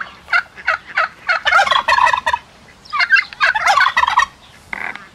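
A domestic tom turkey gobbling twice, each gobble a quick rattling run of short notes, the second starting about a second after the first ends.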